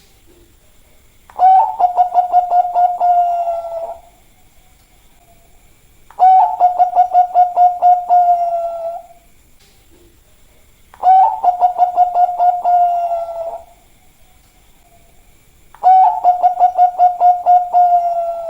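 Bangkok-type zebra dove (perkutut) cooing: four song phrases about five seconds apart, each a quick run of staccato notes that ends in a longer held coo.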